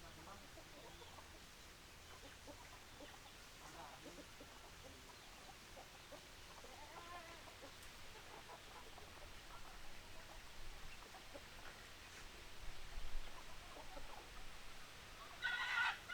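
Chickens clucking softly in short calls that come more often in the second half, with one louder, higher call near the end.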